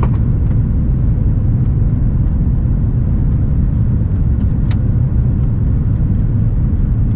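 Steady low rumble of an Airbus airliner's cabin in flight: engine and airflow noise. A brief faint click sounds about four and a half seconds in.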